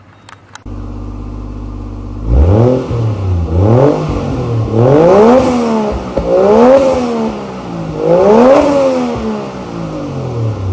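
Two short clicks, then a car engine idling that is revved in about five quick blips, its pitch rising and falling with each before it drops back toward idle near the end.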